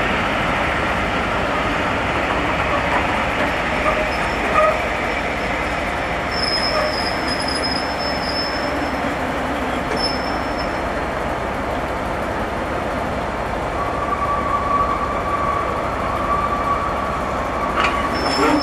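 Passenger coaches rolling slowly along the platform road, their wheels and bogies giving a steady rumble, with high-pitched wheel squeal that comes and goes and holds for a few seconds near the end.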